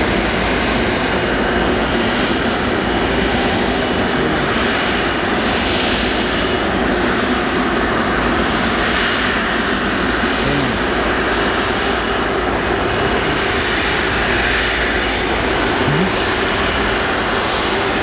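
Rolls-Royce Trent 700 turbofans of an Airbus A330 MRTT Voyager running at idle: a steady jet rush with a faint high whine.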